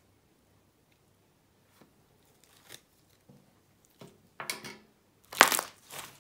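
Clear slime being worked by hand, first a few faint crackles, then louder crackling pops in the last two seconds, the loudest a little after five seconds in.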